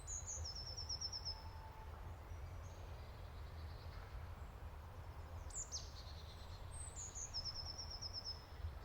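A songbird sings twice, once at the start and again about five seconds in. Each phrase is a high falling note followed by a quick trill of repeated notes, heard over a faint steady low rumble of outdoor ambience.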